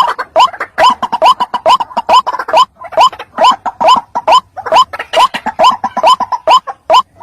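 White-breasted waterhen calling: a steady run of short croaking 'kru-ak' notes, each rising in pitch, about three a second.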